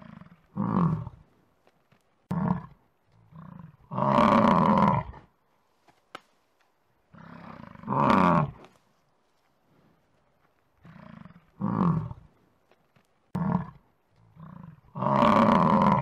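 Bison bellowing over and over with low, rough roars. Three are long, about a second or more each, and shorter roars and softer grunts come between them, with brief silences in between.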